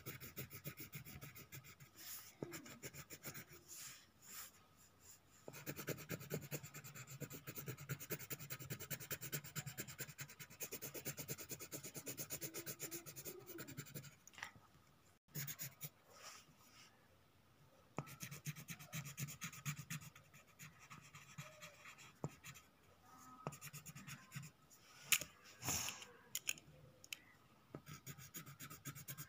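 Coloured pencil shading quickly back and forth on drawing paper, a fast scratchy rubbing in runs of several seconds broken by short pauses.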